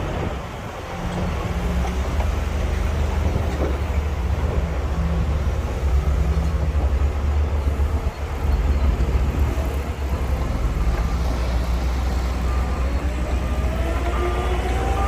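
Heavy diesel earthmoving machinery running with a steady deep rumble. Near the end an engine revs up, rising in pitch, and a reversing alarm beeps repeatedly.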